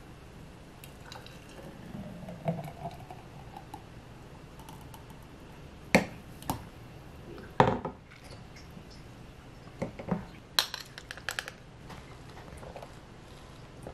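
Thick green smoothie pouring from a blender jar into a glass jar, then sharp clinks and knocks of the glass jars being set down and handled on the counter, the loudest about six and seven and a half seconds in, with a quick run of small clinks a little before the end.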